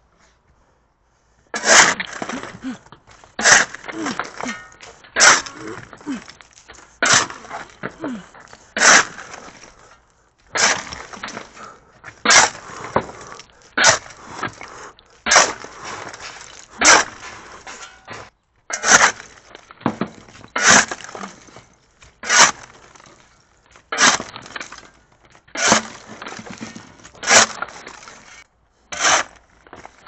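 Pickaxe striking broken concrete and rock rubble in a steady rhythm, a sharp crack about every second and a half to two seconds, with a lower rustle of loose debris between blows.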